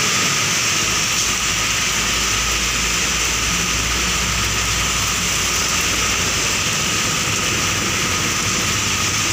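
Heavy rain pouring onto a wet road, a steady hiss, mixed with passing trucks' tyres swishing through the water. A low engine rumble from a passing truck comes in about a second in.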